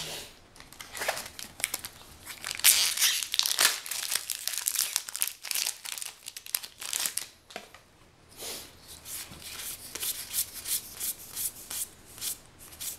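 Plastic foil booster pack wrapper crinkling and tearing as a Magic: The Gathering pack is opened, in irregular rustling bursts with a short lull a little past the middle.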